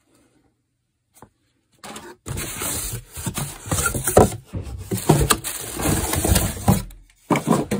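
Plastic wrapping crinkling and cardboard packing scraping as a hand pulls the packaging out of a box, starting after about two seconds of near silence, with short squeaks among the rustle.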